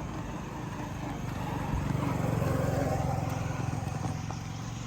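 A motor vehicle engine passing by, growing louder to a peak about halfway through and then fading away.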